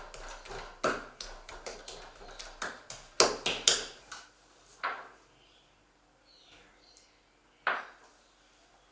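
Kitchen handling sounds: a quick run of sharp taps and clicks for about four seconds, then two single knocks, the last one close to the end.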